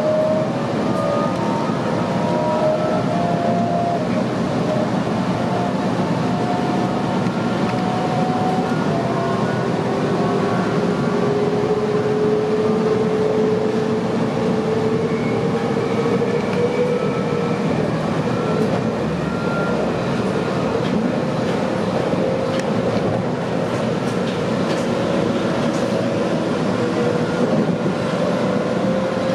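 Cabin noise of a Sydney Trains M-set (Millennium) electric train under way: a steady rumble of wheels on rail with the whine of the traction inverters and motors. Several whine tones shift in the first few seconds, then a single tone rises slowly from about ten seconds in as the train gathers speed, with a few light clicks of wheels over the track later on.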